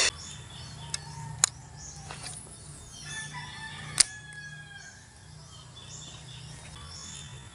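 Outdoor ambience of birds calling, with a rooster crowing about three seconds in. There are a few sharp clicks from handling the baitcasting rod and reel, the loudest about four seconds in as the rod is swung to cast.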